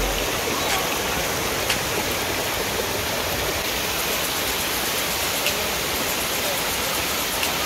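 Waterfall cascading over boulders into a rocky creek: a steady rushing of water.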